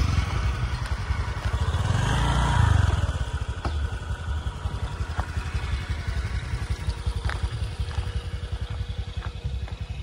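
Motorcycle engine idling with a steady low putter, louder for the first three seconds and then quieter; a few light clicks over it.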